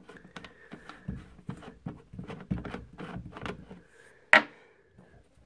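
The knurled magazine cap of an H&R Excell Auto 12-gauge semi-automatic shotgun being unscrewed by hand: a run of small scrapes, rubs and clicks from fingers and threads, with one sharp click about four seconds in.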